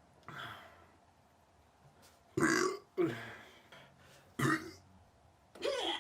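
A person burping: five short belches in a row, the loudest about two and a half, three and four and a half seconds in.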